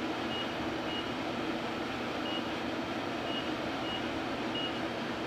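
ProtoTrak CNC lathe control keypad beeping as its keys are pressed: about six short, high beeps at irregular intervals over a steady background hum.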